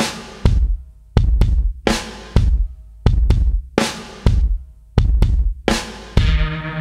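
Background music of heavy drum hits with deep bass and ringing cymbal-like decays, one every half second to a second. A held low note joins in near the end.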